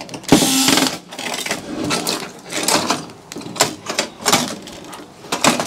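Electric drill-driver running in a short burst about a third of a second in, undoing a screw. It is followed by irregular clicks and clatter of small metal parts and screws being handled.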